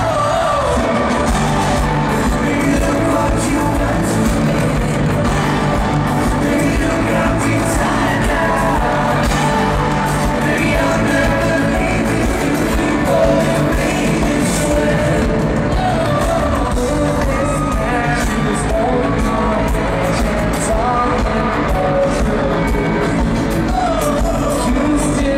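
Live pop-rock performance heard from the audience: male lead vocals sung into hand microphones over electric guitar, bass and drums, loud and steady.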